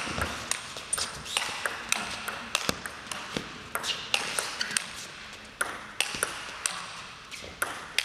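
Table tennis rally: the celluloid ball clicking sharply off the players' bats and the table in a quick, even back-and-forth, two to three clicks a second throughout.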